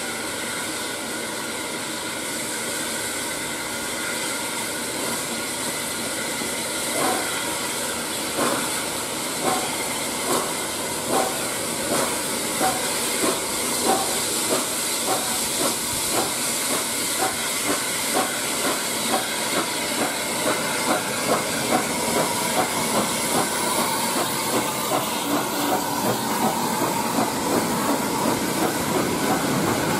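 Steam tank locomotive pulling away with its train: a steady steam hiss, with exhaust chuffs starting about a quarter of the way in and coming faster as it gathers speed. Coaches roll past near the end.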